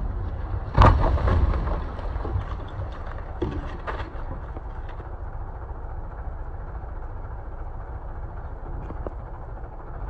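Heavy machinery engine running steadily during demolition work, with a loud crash of falling debris about a second in and smaller crashes and knocks a few seconds later.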